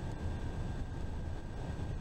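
Steady road and engine rumble heard from inside a bus cruising on the interstate, with a faint steady high whine above it.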